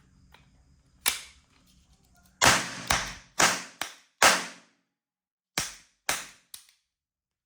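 Toy guns firing: about nine sharp gunshot-like bangs, each with a short ringing tail, coming singly and in quick clusters of two or three.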